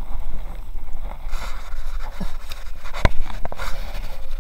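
Inflatable kayak being paddled against the bank: water splashing and rustling along the inflated hull as it rubs, with a sharp knock about three seconds in and a few smaller clicks after it.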